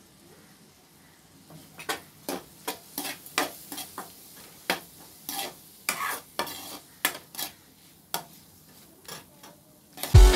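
Metal spatula scraping and clinking against an aluminium kadai as chopped onion and tomato with turmeric are stirred and fried. The run of irregular strokes starts about a second and a half in. Loud music with a beat starts at the very end.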